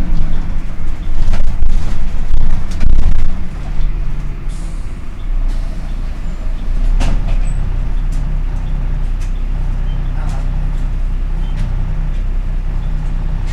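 Dennis Dart SLF bus's diesel engine running with its engine cooling fan on, loud and rough for the first few seconds, then settling to a steady hum. A few sharp clicks come through, the clearest about seven seconds in.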